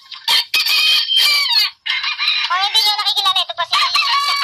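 Roosters crowing: one long crow, then several more crowing over one another at different pitches.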